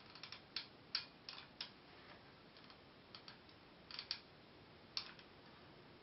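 Hot glue gun's trigger clicking as it is squeezed and released to feed glue, as faint, sharp, irregular clicks in small clusters, the loudest about a second in and near five seconds.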